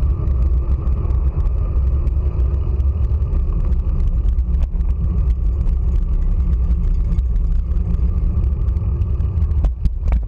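Low, steady rumble of road vibration and wind noise picked up by a handlebar-mounted GoPro as a road bike rolls over pavement, with faint scattered ticks.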